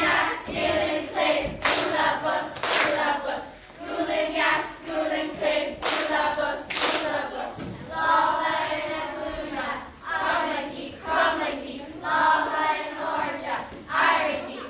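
A group of children singing or chanting together in unison in short phrases, with hand claps among the lines.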